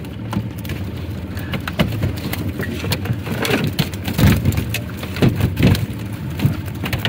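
Catfish being emptied from a wet hoop net onto an aluminum boat's diamond-plate deck: scattered wet thumps and slaps of flopping fish and the net, with water dripping and pattering off the mesh. A steady low hum runs underneath.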